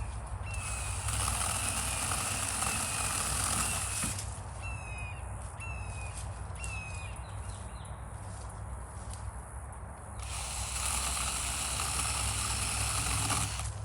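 Cordless mini chainsaw cutting through a downed tree in two stretches, one near the start and one from about ten seconds in, with a lighter, quieter spell between. Short falling chirps repeat through the quieter spell.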